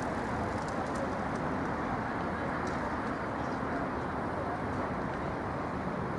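Steady city street noise dominated by passing road traffic, with a few faint ticks.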